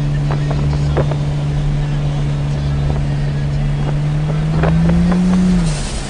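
Ford Falcon XR6 Turbo's 4.0-litre turbocharged straight-six heard from inside the cabin at freeway speed: a steady drone that climbs slightly in pitch about four and a half seconds in, then falls away sharply near the end.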